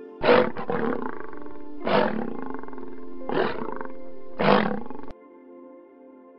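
Tiger roaring and growling, four loud calls about a second and a half apart, cutting off abruptly about five seconds in, over soft ambient music.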